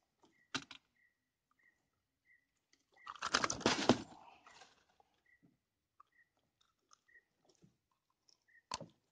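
Handling noise from a freshly caught snakehead being brought aboard a wooden canoe and gripped for unhooking. A loud crunching, rustling burst comes about three seconds in, with a sharp click near the start and another near the end.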